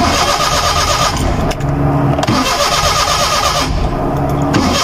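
Suzuki Mehran's three-cylinder petrol engine cranked on the starter three times in bursts without firing. It will not catch because a wire has been pulled from its plug connection to cut the current, as an anti-theft measure.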